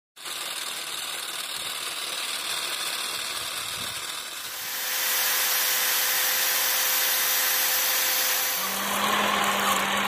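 Small DC electric motor of a handmade toy combine harvester whirring as it drives the machine's belts and gears. It gets louder about halfway through, and a steady low hum joins near the end.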